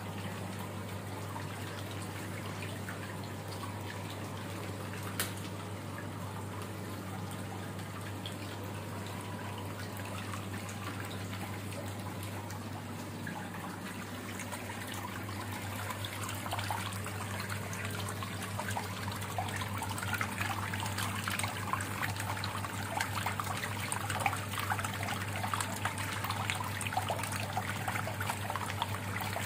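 Backwash flush water from a water filter tank pouring out of a PVC drain pipe and splashing onto a tiled floor, the splashing growing louder from about halfway in, over a steady low hum.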